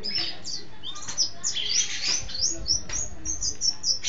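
White-eye (pleci) singing a fast, unbroken run of high chirps and down-slurred notes.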